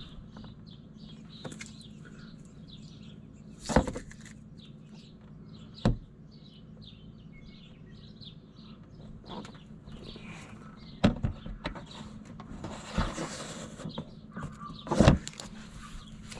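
Small birds chirping in the background, broken by a few sharp knocks and a short rustle of handling.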